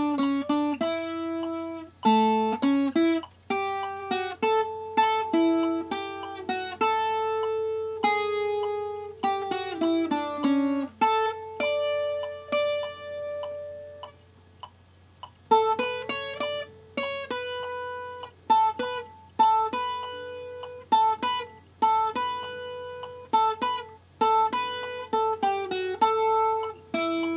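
Puerto Rican cuatro playing a picked single-note melody with quick runs, easing to a few held notes and a short pause about halfway through before the quick picking resumes.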